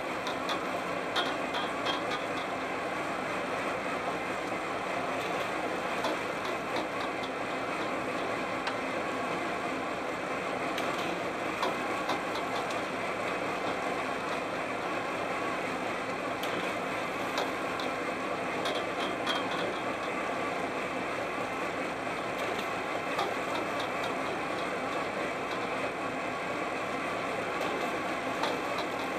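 A fishing boat's engine running steadily during a seine set, with scattered light clicks and clinks every few seconds.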